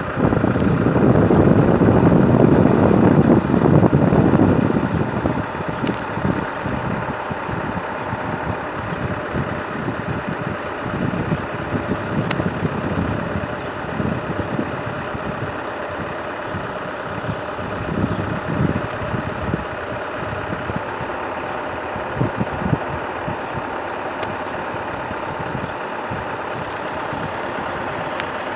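Engine of a truck-mounted crane idling steadily, louder and rougher for the first five seconds.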